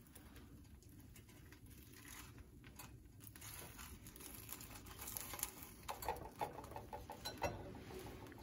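Bánh xèo crepe frying in hot oil in a pan after being flipped, a faint steady sizzle with fine crackling. The batter is crisp and nearly done.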